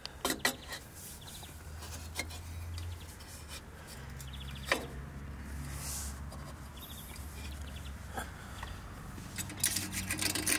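Scattered metal clicks and light scraping as the Dominator exhaust silencer is slid onto the header pipe and its band clamp is handled, with a quick run of clicks near the end, over a low steady hum.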